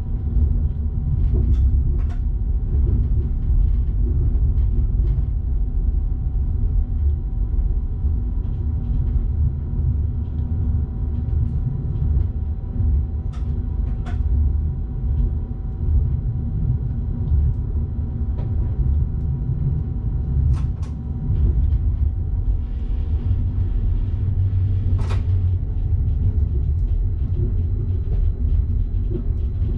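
Electric train running along the track, heard from the driver's cab: a steady low rumble with a faint steady whine above it and a few sharp clicks, the loudest near the end.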